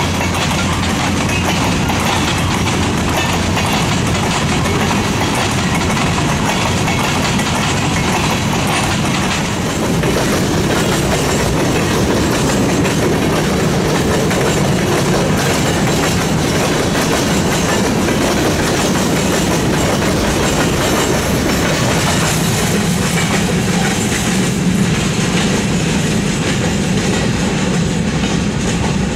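Long freight train of covered hopper cars rolling past, its steel wheels running over the rails in a steady, loud rumble.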